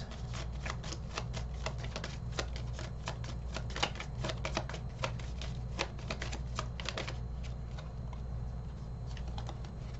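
A tarot deck being handled and shuffled by hand: a quick, irregular run of soft card snaps and slides that thins out after about seven seconds.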